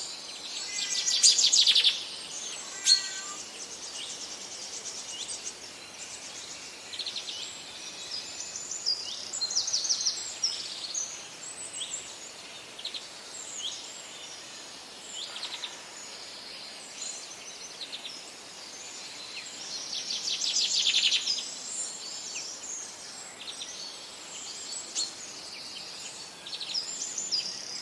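Several songbirds singing over a steady background hiss, with rapid trilled phrases that are loudest about a second in and again about twenty seconds in.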